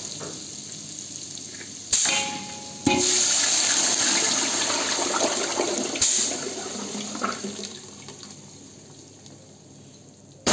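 Ginger-garlic paste and red chilli sizzling in hot oil in an aluminium pot, then blended tomato purée poured in with a loud sizzling splash from about three seconds in. The sound dies down over the last few seconds.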